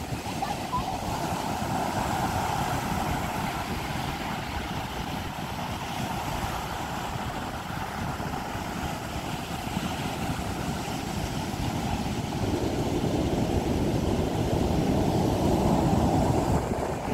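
Ocean surf breaking and washing up a sandy beach, mixed with wind rushing over the microphone; the low rumble grows louder in the last few seconds.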